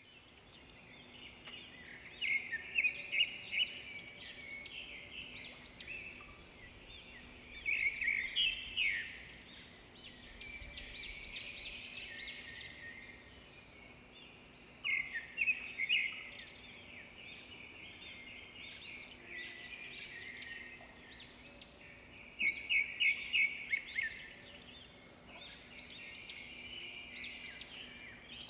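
Duckling peeping: runs of quick, high chirps come in bursts every few seconds, with a faint steady hum underneath.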